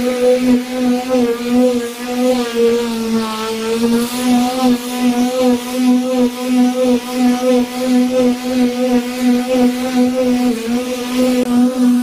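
Electric palm sander running steadily with a buzzing motor hum, its sanding pad hissing against the wood. The level swells and fades about twice a second, and the pitch sags briefly about three seconds in.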